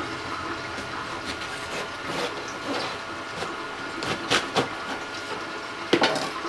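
A knife cutting through a head of Napa cabbage, then the head being pulled apart by hand: scattered crisp crunches and snaps, with a cluster about four seconds in and a sharper snap near the end, over a steady low hiss.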